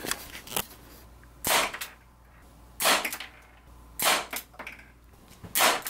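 Revolver-style BB air pistol firing four shots, each a sharp pop, roughly a second and a half apart.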